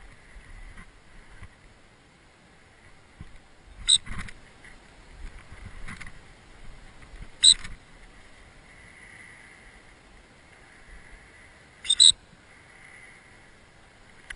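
Gundog training whistle: short shrill blasts about four seconds in and again a few seconds later, then a quick double toot near the end, over a faint steady hiss.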